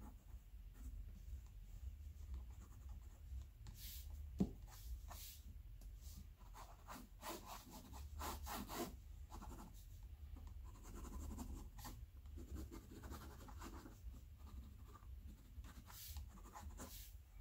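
Sakura Pigma Micron fine-line ink pen scratching across watercolour sketchbook paper in quick, short strokes as lines are drawn. One sharp tap comes about four seconds in.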